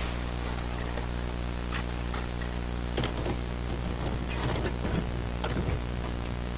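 Steady electrical hum over a hiss of static, with scattered faint clicks and crackles.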